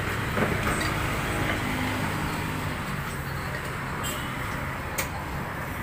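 Steady hum of a vehicle engine running, with a couple of short sharp clicks: one about half a second in and one near the end.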